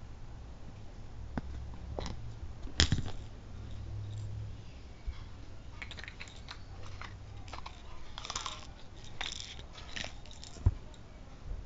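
Close handling noises: a scattered run of clicks, taps and rustles, with a sharp click about three seconds in and a low thump near the end.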